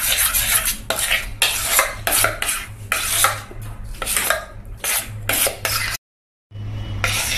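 Thick besan (gram-flour) batter being beaten by hand in a stainless steel bowl: quick, repeated wet strokes against the bowl, about three a second, over a low steady hum. The sound cuts out for a split second about six seconds in.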